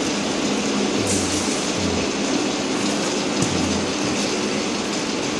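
Automatic single-roll toilet paper packing machine running: a steady mechanical whir and rattle, with a low hum that swells and fades several times and a few faint clicks.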